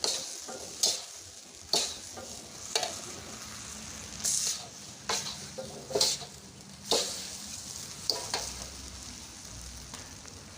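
Noodles being stir-fried in a wok, sizzling steadily, with a metal spatula striking and scraping the pan roughly once a second.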